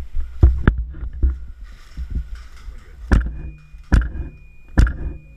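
Airsoft rifle firing single shots, sharp cracks with a low thump under each. There are two quick shots about half a second in, then three more spaced just under a second apart from about three seconds in.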